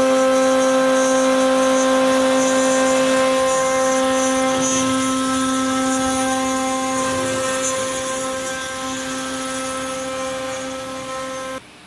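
CNC milling machine's electric spindle whining at one steady pitch while its cutter mills a pocket into a metal plate, with a hiss of cutting noise. The sound grows a little quieter over the seconds and cuts off suddenly near the end.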